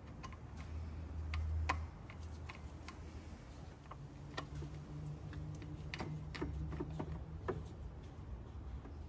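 Scattered light ticks and clicks as bolts are run in with a flexible-drive screwdriver, over a low steady hum.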